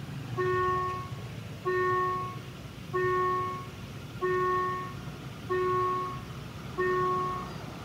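Railway level-crossing warning signal sounding a repeated electronic chime, one ding about every 1.3 seconds, six in all, warning that a train is approaching.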